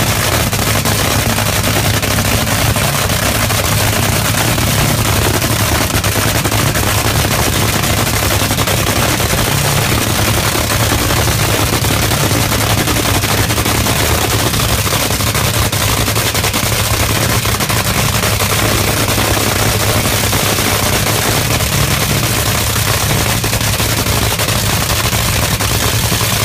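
Top Fuel dragster's supercharged, nitromethane-burning Hemi V8 running at a steady idle after fire-up: a loud, rapid, crackling firing that holds even throughout.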